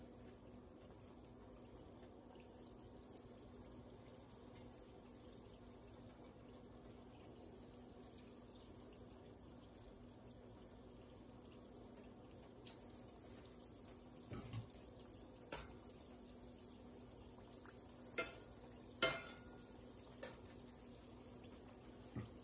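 Apple-ring doughnuts frying in a pot of oil: a faint, steady sizzle, with scattered sharp pops and clicks in the second half, the loudest a few seconds before the end.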